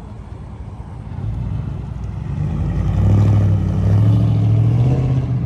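Exhaust of a Ford F-150's 5.4 Triton V8 with the muffler deleted: a low drone that swells louder from about a second in, holds, then eases off near the end.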